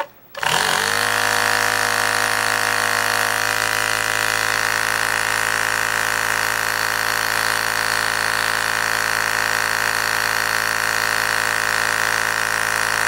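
Slime 12-volt portable air compressor switching on, spinning up briefly in pitch, then running with a steady hum.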